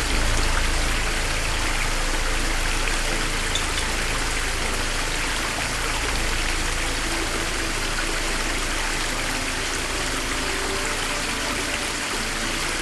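Water running down a small stone-stepped cascade, a steady rushing and splashing.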